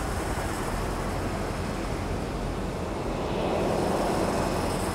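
Steady apron noise of an airliner parked at the gate and its ground equipment: a low hum under a hiss with faint high whining tones, swelling slightly about three and a half seconds in.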